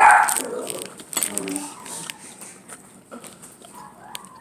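A pet dog barks loudly once at the very start, followed by quieter, scattered sounds and faint clicks.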